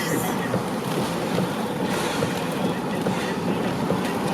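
Wind rushing in through an open car window with the road noise of the moving car, a steady hiss and rumble.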